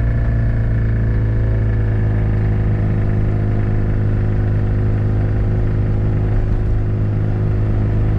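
Ligier JS50 Sport Pack microcar's engine pulling at full throttle from a standing start towards 50 km/h. Its pitch rises briefly at the start, then holds steady while the car gathers speed.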